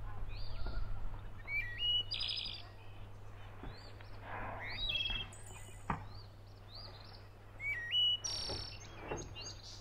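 Small songbirds singing and chirping, with short rising calls and quick trills one after another, and a single sharp knock about six seconds in.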